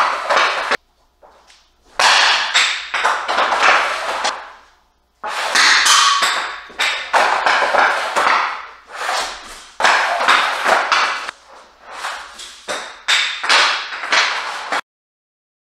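Hockey shots with a Fly Puck Pro: the stick blade slapping the shooting pad and the puck cracking into the net and garage door behind it, repeated about every couple of seconds. It cuts off suddenly near the end.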